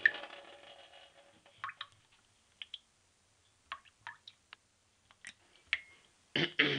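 Water drops dripping and plopping one by one. The first plop rings on for about a second, a scatter of small drips follows, and a louder, fuller splash comes near the end as a ripple spreads.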